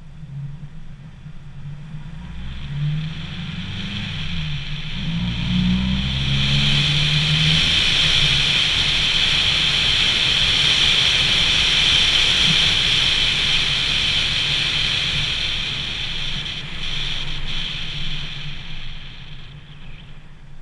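Pickup truck engine and road and wind noise heard through a GoPro's sealed waterproof housing on the hood. The engine rises in pitch as the truck accelerates over the first several seconds, then a steady rushing noise builds while it cruises and fades near the end.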